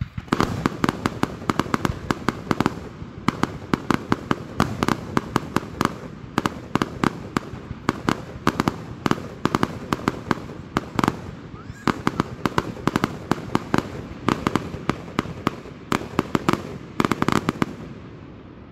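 Aerial fireworks bursting in a rapid barrage, a dense run of bangs several a second, dying away near the end.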